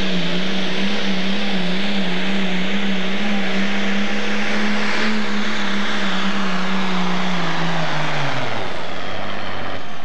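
International super stock pulling tractor's engine running flat out under load as it drags the weight sled: a loud, steady engine note that wavers slightly in pitch. About eight seconds in, the engine note drops sharply as the revs fall and the pull ends.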